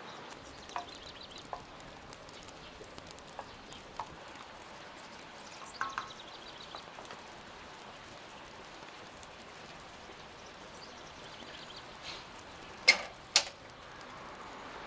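A small wood fire under a cooking pot, crackling faintly with scattered pops, over a quiet rural background with a few faint bird chirps. Near the end come two sharp knocks about half a second apart, the loudest sounds of the stretch.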